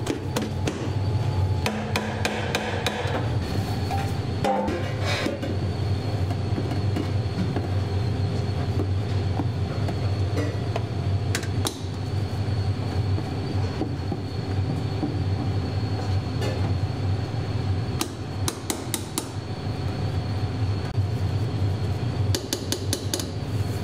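Metal masher and spatula working mashed potatoes in a stainless steel hotel pan: clusters of quick knocks and scrapes against the pan at the start, again about three-quarters of the way through and near the end, over a steady low hum.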